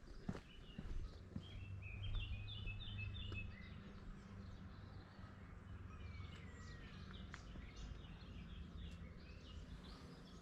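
Songbird singing outdoors: a quick run of short repeated high notes about two seconds in, then scattered chirps and a short falling whistle, over a steady low rumble. A few footsteps on the trail in the first second or so.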